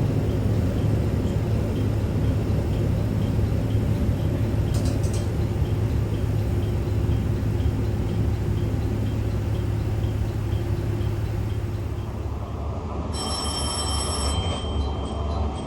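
Diesel railcar running with steady engine and rail noise. Near the end an ATS-Sx electronic warning tone sounds for about a second and a half, and a repeating electronic beep, the ATS continuous alarm, follows it.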